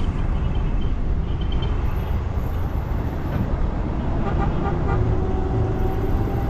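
City bus (micro) engine and road noise, a steady low rumble in traffic, with a faint horn toot about four seconds in.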